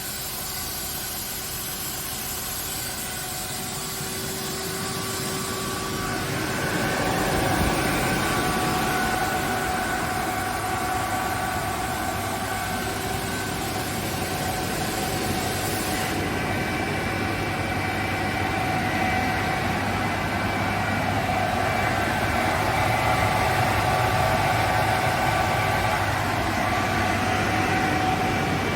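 KAESER SK25T 15 kW rotary screw air compressor running with its covers off, building pressure: a steady mechanical hum and rush with several steady whining tones. It grows louder about seven seconds in.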